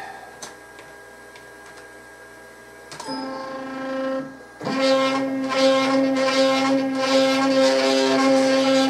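CNC router's spindle motor switching on with a click about three seconds in and running up to a steady high-pitched whine; it dips briefly and comes back louder about a second and a half later, the half-inch roundover bit spinning free above the work.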